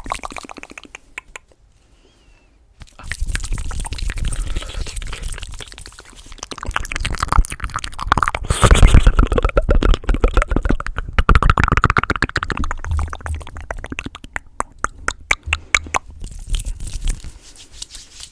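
Fast, aggressive ASMR mouth sounds close to the microphone: rapid wet clicks, smacks and tongue pops, pausing briefly near the start, then running densely and loud.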